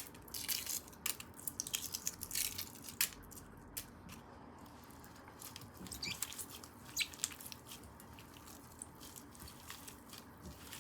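A person eating: irregular crisp bites and chewing, with many short sharp clicks scattered throughout.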